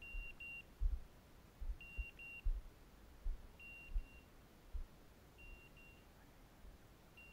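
A hunting dog's beeper collar sounding its point signal: a high double beep repeated about every second and three-quarters, which means the setter has stopped on point. Low thumps come in between.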